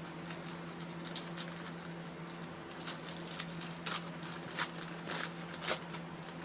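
Sports trading cards being handled and shuffled, making light rustles and small clicks, with a few sharper ticks in the second half.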